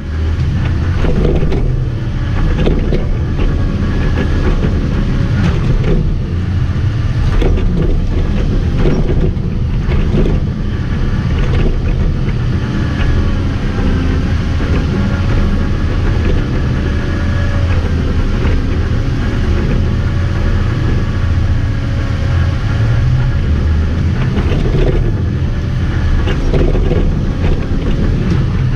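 A vehicle engine running steadily without a break, a deep, even rumble with faint steady tones above it.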